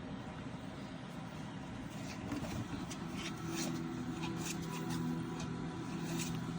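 Faint scuffling and small scattered clicks of French bulldog puppies playing and mouthing at each other, over a steady low hum that comes in about two and a half seconds in.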